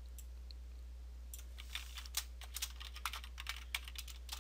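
Typing on a computer keyboard: a run of irregular keystroke clicks, several a second, starting about a second and a half in.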